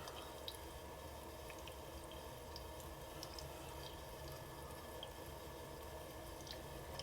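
GENIANI ultrasonic cool-mist humidifier running on its max setting and misting: a faint steady hum with scattered small water drips and gurgles, its chugging.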